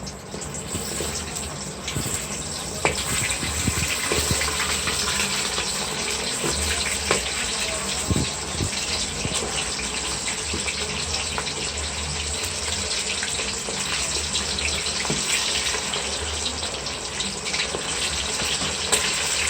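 Flour-coated chicken deep-frying in very hot oil: a steady sizzle dotted with many small crackles and pops, building over the first couple of seconds and then holding.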